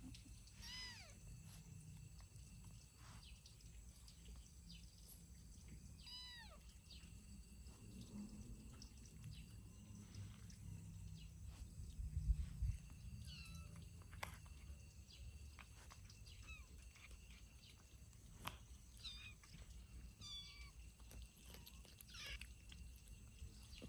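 Kittens mewing: a string of short, high calls that fall in pitch, two clearer ones in the first six seconds and several fainter ones later, over a low rumble. A low thump about halfway is the loudest moment.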